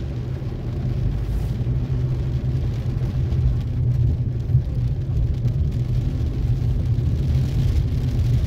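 Car engine and road noise heard from inside the cabin as the car moves off through a junction and turns, a steady low rumble that grows slightly louder.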